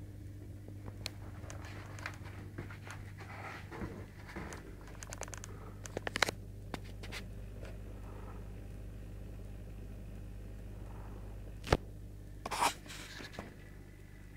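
Steady low electrical hum from the aquarium's equipment, with scattered clicks and scrapes over it and a few sharp louder clicks near the end.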